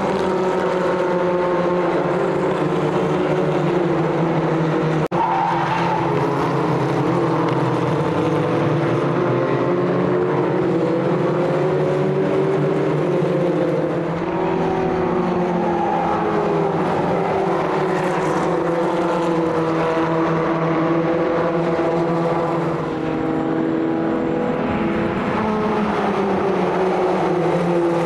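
Race cars' engines running hard on track, several overlapping at once, their pitch rising and falling through gear changes.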